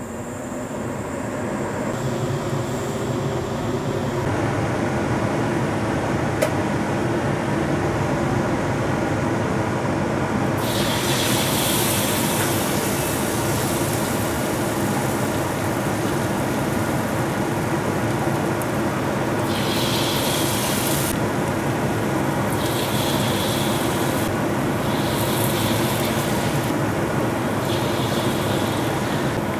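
Battered tempeh slices frying in hot oil in a wok, sizzling from about a third of the way in, with louder bursts of sizzle several times near the end as more slices go in. A steady hum runs underneath throughout.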